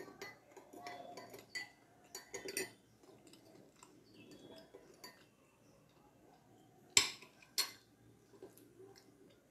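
Metal teaspoon stirring tea in a glass cup, with light clinks against the glass. About seven seconds in come two sharp clinks, half a second apart, as the spoon is laid down on the glass saucer.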